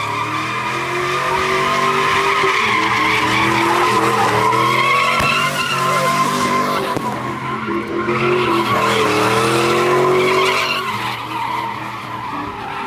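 A car doing donuts: its tires squeal without a break while the engine is held at high revs, the pitch rising and falling as the throttle is worked. It eases slightly near the end.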